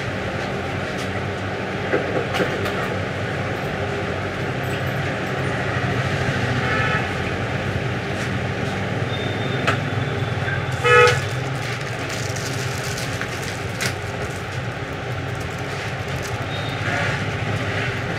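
Steady background traffic noise, with a short vehicle horn toot about eleven seconds in and a few fainter horn-like notes around it.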